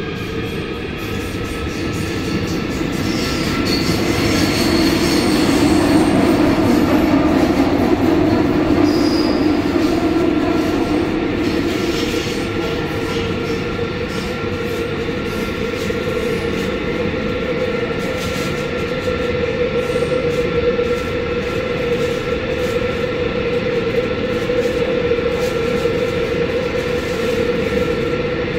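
Busan Metro 2000-series electric train's IGBT VVVF inverter and traction motors whining as the train pulls out of the station. The whine rises in pitch over the first couple of seconds, then holds steady under a loud rumble of wheels on rail in the tunnel. A few short high wheel squeals come about four to nine seconds in.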